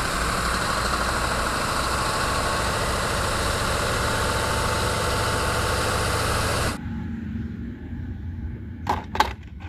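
Heavy tow truck's diesel engine running under a loud, even rushing noise, cutting off sharply about seven seconds in. A few faint clicks follow near the end.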